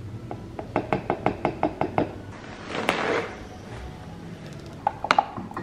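Small measuring spoon tapping rapidly on a canister's rim, about seven quick knocks a second for over a second, then a short rush of noise and a few sharp glass clinks near the end while a green powder drink is mixed in a ribbed glass.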